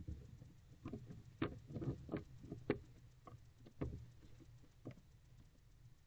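Barn owl moving about inside its nest box: a string of irregular knocks and scratches as its feet and body shift against the box and nest debris. There are no calls.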